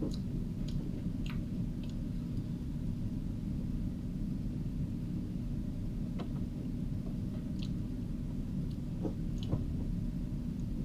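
A person chewing an Oreo cookie: faint, scattered crunchy clicks over a steady low background rumble.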